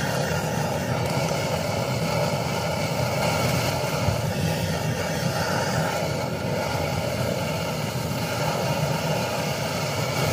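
Steady rushing of a portable gas-canister stove's burner under a wok, with the sizzle of shrimp and green and red peppers stir-frying in oil.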